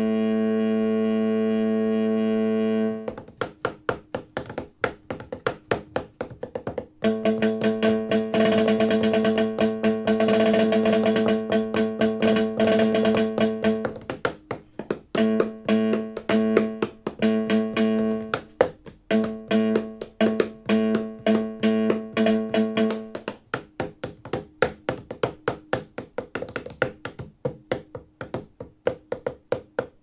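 Simple touch-controlled digital instrument playing electronic music: a held droning note that stops about three seconds in, then rapid clicky repeated notes over a pitched tone that starts and stops in short stretches.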